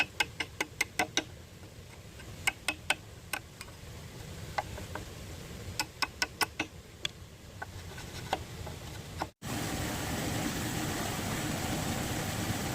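Runs of quick, sharp knocks, several a second, separated by short pauses. About nine seconds in, the sound cuts to a steady, louder rushing noise.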